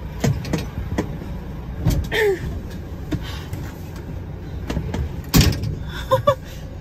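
Volvo skip lorry's diesel engine idling with a steady low rumble while oncoming vehicles pass close by. Several sharp knocks come through, the loudest about five seconds in, and two short high chirps sound near the end.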